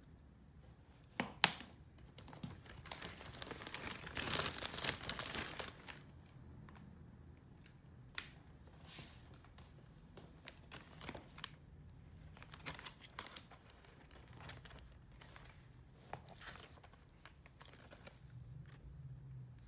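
Crinkling and rustling of a crumpled sheet as dolls are handled on it, with a sharp click about a second in and the longest, loudest crinkling around four to five seconds in, then scattered short rustles.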